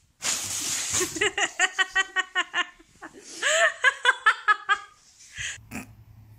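A paper bag crinkles briefly, then a person laughs in two quick runs of high-pitched "ha-ha-ha" bursts as a cat plays in the bag.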